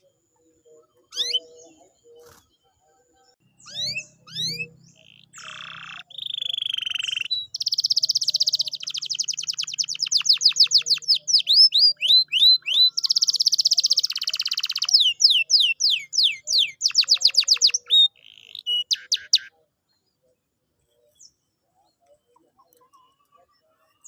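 Domestic canary singing: a few quick rising whistled sweeps, then long, very fast trills of repeated notes. The song stops about twenty seconds in.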